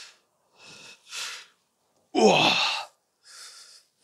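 A man breathing hard in short huffs, with one louder grunt falling in pitch about two seconds in.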